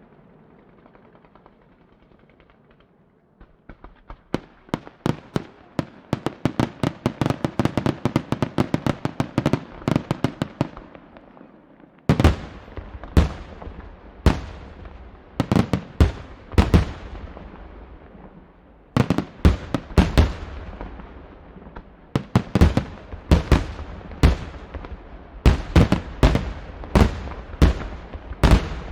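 Aerial fireworks: after a quiet few seconds, a fast, quickening run of sharp cracking reports from about three and a half seconds in. From about twelve seconds in, heavy, deep booms of shell bursts follow one or two a second and are the loudest part.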